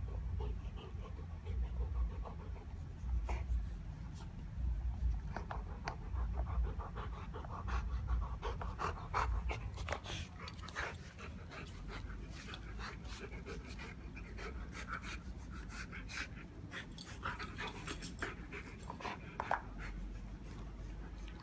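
Rottweiler panting while chewing an old washing-machine part, a corrugated rubber hose with a plastic fitting: many sharp clicks and crunches of teeth on rubber and plastic, densest in the middle and later part.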